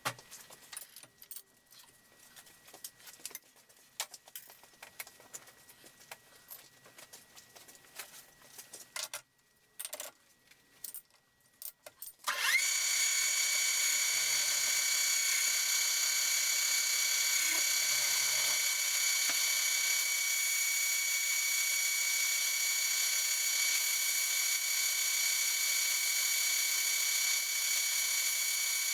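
Small handling clicks and knocks, then about a third of the way in a machine-shop power tool starts up and runs steadily with a high whine, likely the set-up for cutting a keyway in the shaft.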